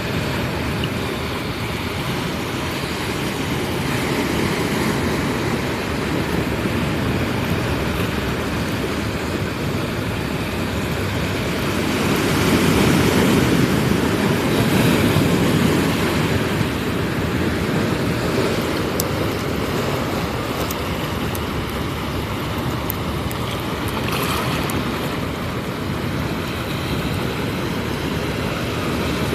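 Ocean waves breaking and washing up the beach, swelling louder for a few seconds midway.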